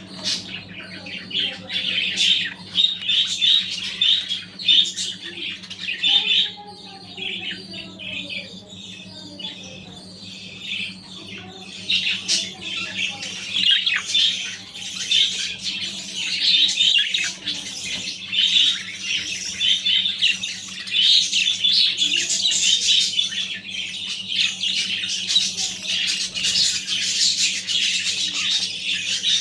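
A group of male budgerigars chattering and squawking without pause, with a steady low hum underneath.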